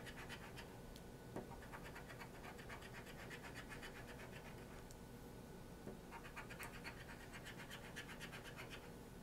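Scratch-off lottery ticket being scratched: quick, faint strokes scraping off the coating, in a burst at the start and again from about six seconds in, with a pause between.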